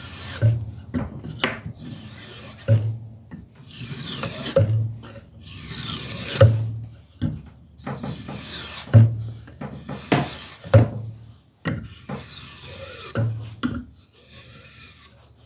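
Spokeshave cutting walnut: about seven long shaving strokes, roughly one every two seconds, each a rasping scrape that ends in a low thud, as the corners are taken off a square blank to round it into a dowel.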